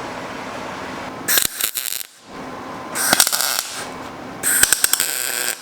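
Crinkling, crackling packaging being handled in three short bursts, with scattered clicks, over a steady low room hum.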